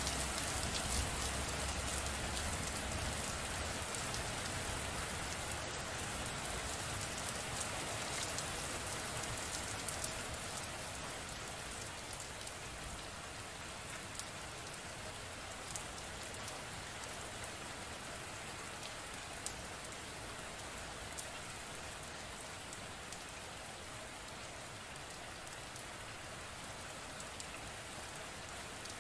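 Steady rain falling, with many individual drops ticking through the constant hiss. A low rumble fades out in the first few seconds, and the rain eases a little in loudness over the first ten seconds or so before holding steady.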